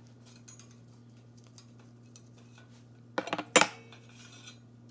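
Metal bicycle parts clinking and clattering as the stem, headset spacers and fork are taken apart, with a quick cluster of sharp metallic clinks about three seconds in. A steady low hum runs underneath.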